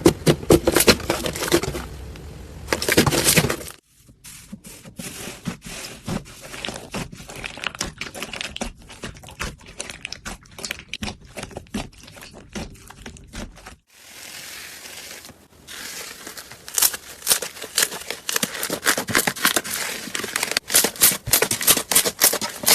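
Slime being squeezed and pressed by hand, giving dense crackling and popping clicks. The sound is loud at the start, drops to quieter, sparser clicks after about four seconds, then grows loud again in the last few seconds.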